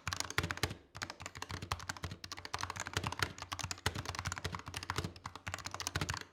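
Typing sound test on a Razer Huntsman Tournament Edition keyboard with its orange Razer opto-mechanical switches: a fast, steady stream of keystroke clicks.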